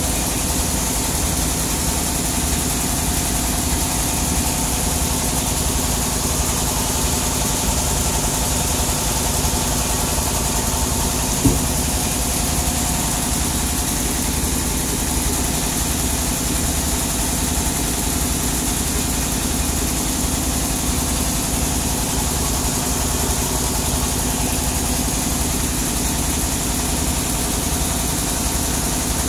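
Sawmill machinery running steadily with no cut being made, an engine idling with an even low throb. A single sharp knock sounds about eleven seconds in.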